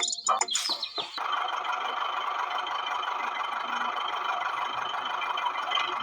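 A few short chirps, then about a second in a small electric motor, likely the toy tractor's, starts up and runs with a steady buzz.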